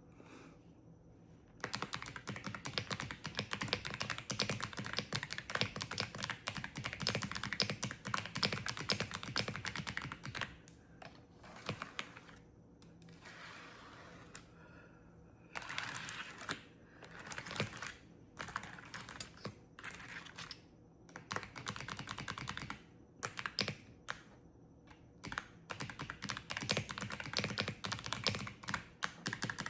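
Fast typing on a clicky computer keyboard: rapid key clicks in long bursts broken by short pauses, starting about two seconds in.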